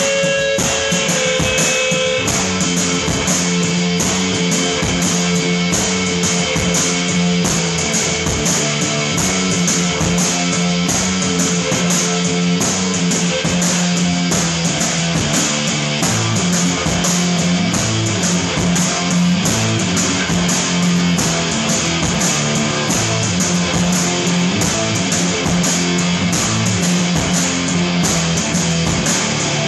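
Live instrumental stoner/post-rock band playing loud: distorted electric guitars over a drum kit with steady cymbal and drum hits, without vocals.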